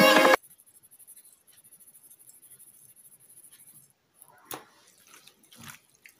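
Electronic background music cuts off just after the start, leaving a faint hiss. From about four seconds in come a light knock and soft wet clicks and rustles: hands tossing salted pieces of pollock in a glass bowl.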